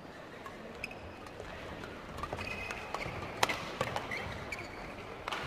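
Badminton rally in an arena: sharp racket strikes on the shuttlecock, the loudest about three and a half seconds in and another near the end, with short shoe squeaks on the court and a low crowd murmur.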